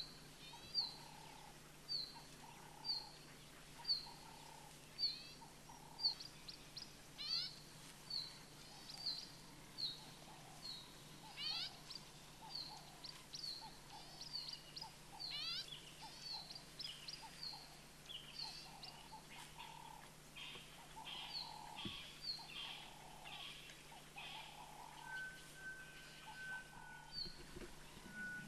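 Several wild birds calling in dry bush: a short, high, falling note repeated about once a second, mixed with quick rising whistles and a lower repeated call, thinning out in the second half.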